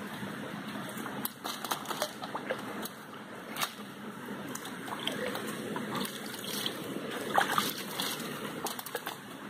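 Shallow forest stream running over leaves and stones, with scattered splashes and sloshes in the water; a cluster of louder splashes comes late on.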